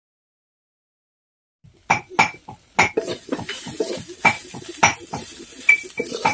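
A flat metal spatula scraping and clinking against a steel wok while stir-frying. The strikes ring with a clear metallic tone, about two a second, and begin after about a second and a half of silence.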